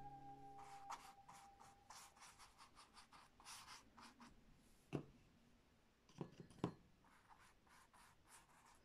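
Flat bristle brush stroking and scrubbing paint onto a canvas: faint, repeated scratchy strokes, with a few sharper taps around the middle. A held note of background music dies away in the first second.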